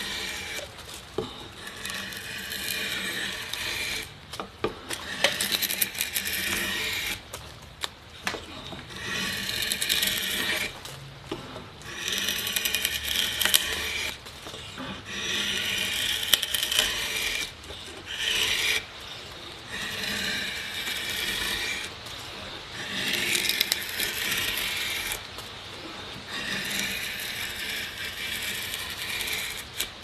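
A curved carving blade shaving long curls from a board as it hollows it out: a run of scraping, hissing cuts, each lasting one to three seconds with short pauses between, roughly every two to three seconds.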